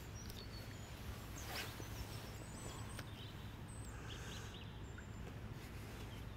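Faint outdoor ambience: a steady low hum with a few faint, short high bird chirps.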